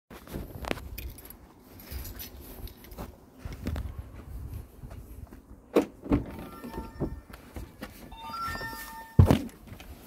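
Footsteps and handling noise while approaching a Volvo XC90, then a click as the driver's door handle is pulled about six seconds in. A short run of electronic beeping tones follows, and the door shuts with a heavy thump near the end.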